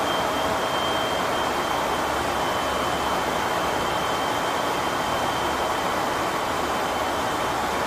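Steady in-flight cockpit noise of a KC-135 Stratotanker: an even rush of engine and airflow noise, with a thin, steady high-pitched whine over it.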